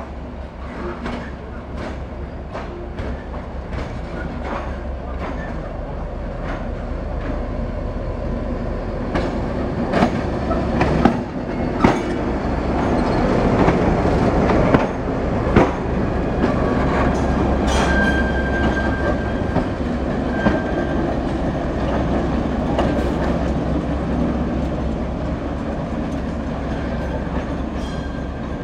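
Diesel locomotive running past at close range. A deep, steady engine drone swells to its loudest as the locomotive passes, with sharp clacks of the wheels over rail joints. Short high wheel squeals come in the second half as it moves away.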